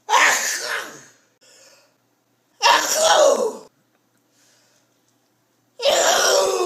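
An elderly woman sneezing loudly three times, about three seconds apart, each sneeze a drawn-out, almost scream-like cry lasting about a second.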